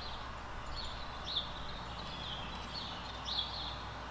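Songbird chirping: a string of short, high chirps repeated every half second or so, the clearest about a second in and again near the end, over a steady background hiss.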